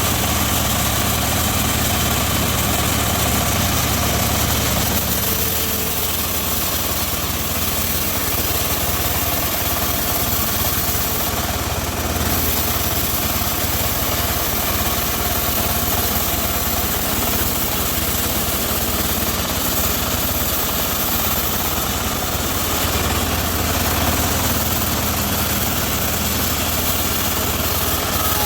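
Homemade bandsaw mill running steadily: a constant low machine drone with a high hiss over it.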